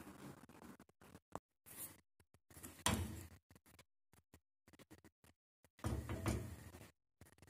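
Faint, intermittent kitchen knocks and clatters: a sharp knock about three seconds in and a longer, louder clatter around six seconds in.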